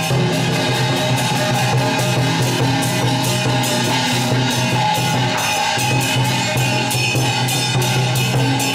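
Temple-procession music, loud and continuous: drums keeping a steady beat under a held melody, from a decorated drum truck fitted with a loudspeaker.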